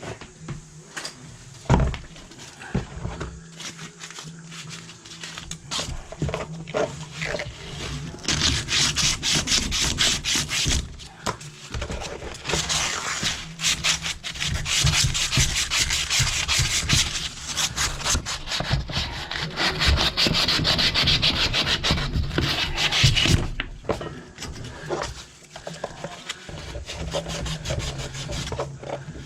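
Rapid back-and-forth rasping, rubbing strokes of a hand tool working on the plumbing for the toilet shut-off valve. They come in long spells that grow louder from about eight seconds in and ease off near the end.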